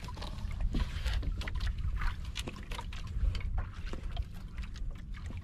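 Water lapping against the hull of a small boat at sea, with scattered small clicks and knocks of fishing line and gear being handled, over a steady low rumble.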